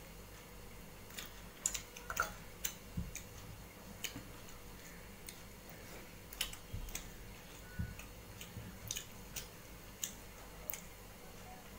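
Irregular wet clicks and smacks of a person eating rice with his fingers: lip smacks and chewing, with fingers gathering food off a metal plate.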